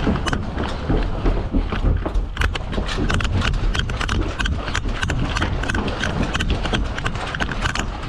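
Fast, irregular clatter of running footsteps and rattling gear over a constant low rumble of movement and wind on a body-worn camera microphone.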